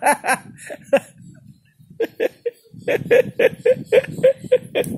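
A person laughing: a few short bursts, a brief pause, then about two seconds in a long run of quick, even-pitched 'ha' pulses, about four a second.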